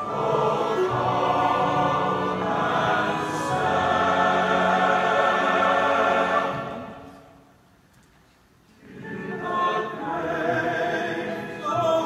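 Large men's chorus singing a held chord. The phrase fades away about six and a half seconds in, and after a pause of a couple of seconds the chorus comes back in.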